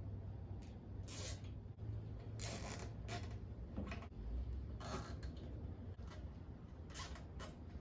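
Hand work on the minibike's small metal brake parts: a handful of short ratcheting, scraping clicks spaced a second or two apart, over a faint low hum.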